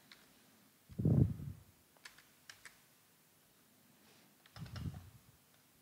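Computer keyboard typing: a few scattered key clicks, with a low thump about a second in that is the loudest sound and a softer one near the end.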